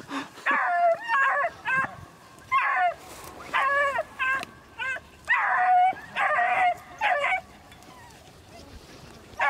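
Hunting beagles baying in a run of short, overlapping cries, some drawn out into a held lower note, as the pack runs a rabbit. The cries stop about two seconds before the end.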